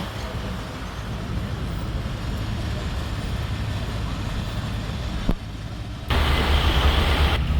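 Steady low vehicle engine rumble with a background noise wash. It drops away abruptly about five seconds in and comes back louder a moment later.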